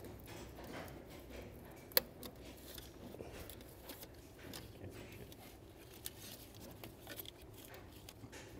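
Faint handling sounds of gloved hands working a plastic electrical connector loose from an engine's throttle body, with small plastic clicks and one sharp click about two seconds in.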